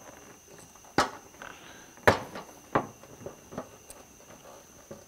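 Knocks and taps of a Honda S2000's plastic front bumper cover being pushed and fitted into place: three sharp knocks about one, two and nearly three seconds in, the middle one loudest, then lighter taps. Crickets chirp steadily in the background.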